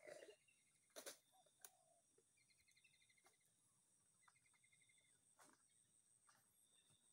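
Near silence with faint outdoor ambience: a steady high insect drone, a bird giving two short runs of rapid trilled notes, and a few faint sharp knocks, the loudest about a second in.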